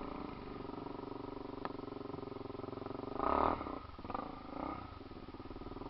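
Off-road vehicle's engine idling steadily, with a brief louder surge about three seconds in.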